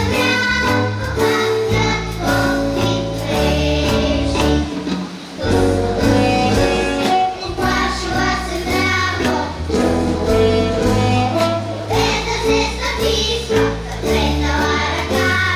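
Children's vocal ensemble singing a song over an instrumental backing track with a stepping bass line.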